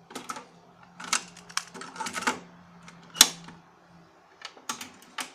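Pioneer CT-229 cassette deck's transport mechanism clicking and clunking as its control keys are pressed, a dozen or so separate clicks with the loudest a little after three seconds in. A faint low hum runs underneath and stops about four seconds in.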